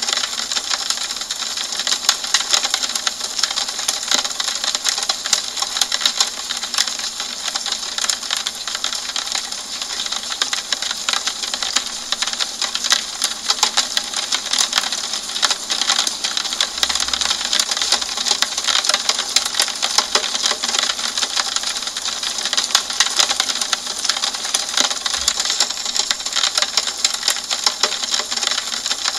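Steady rain on a window pane: a dense, even stream of quick raindrop taps over a soft hiss.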